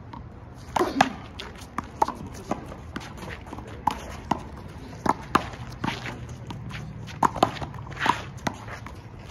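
Wall handball rally: sharp, irregular smacks of the small rubber ball being struck by hand, hitting the concrete wall and bouncing on the concrete court, mixed with players' sneaker footfalls.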